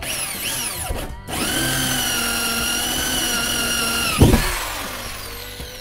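Small corded electric drill with a tank hole-cutting bit boring through the wall of a triple-layer plastic water tank. The motor whines up, stops briefly about a second in, then runs at a steady pitch. At about four seconds there is a sharp knock, and the motor winds down with falling pitch.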